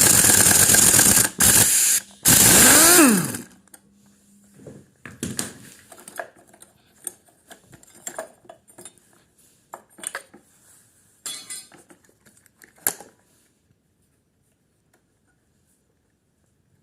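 Electric power driver spinning a socket on a 10 mm nut, run in three short bursts. After the last burst the motor winds down with a falling whine. Light metal clicks and clinks of loosened parts follow.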